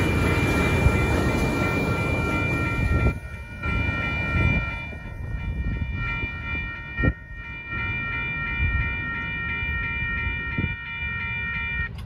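Two Siemens SC-44 diesel locomotives at the rear of a passenger train pass over a grade crossing, loud for the first three seconds and then fading away. A railroad crossing bell rings steadily throughout and stops near the end.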